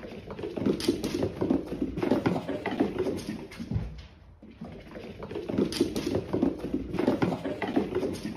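Cats' paws pattering and thudding on a wooden floor as they chase each other, in two long runs with a short lull about four seconds in.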